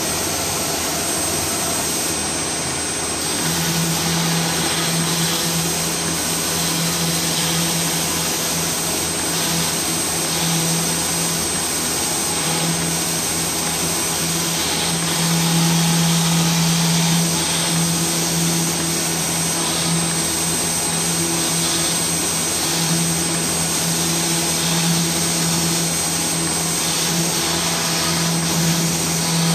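A vertical CNC router's high-speed spindle whines steadily while its cutter mills grooves into a composite panel, with the dust extraction running. A lower hum joins about three seconds in and rises and falls as the head moves.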